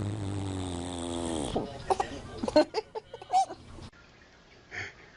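A long, low fart with a buzzing pitch that sinks slightly, cutting off about a second and a half in. A few short, scattered sounds follow.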